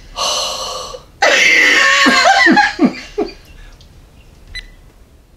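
People laughing: a short high burst of laughter, then a louder laugh of several falling 'ha's that dies away a little past halfway.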